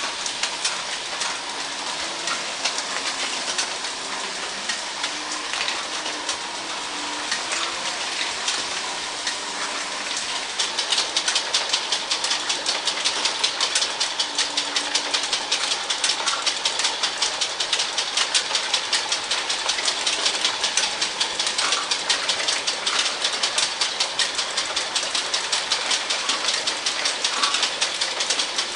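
Model trains running on a layout: a steady mechanical clicking and rattling of wheels on track. About ten seconds in it becomes louder, with a regular beat of two or three clicks a second.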